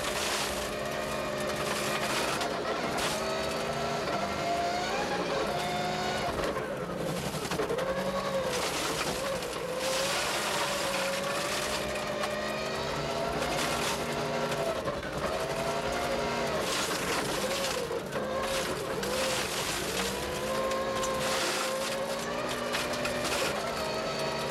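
Rally car engine running hard, its pitch climbing and dropping again and again as it revs out and shifts through the gears, over a steady rush of road and wind noise.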